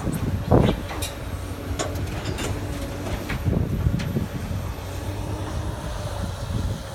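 Komatsu hydraulic excavator's diesel engine running with a steady low rumble while it works, with a few scattered knocks in the first few seconds.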